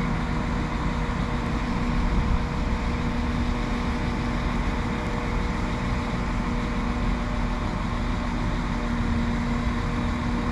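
Northern Class 195 diesel multiple unit standing at the platform with its engines idling: a steady hum over a low rumble.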